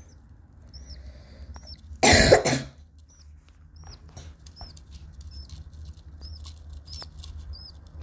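A person coughs once, loudly, about two seconds in. Around it, baby birds in the nest give short, high chirps every half second or so.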